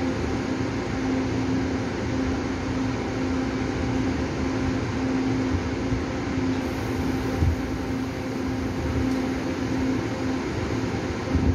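Taiwan Railway Tze-Chiang express train pulling out of the station: a steady running rumble with a constant low hum over it.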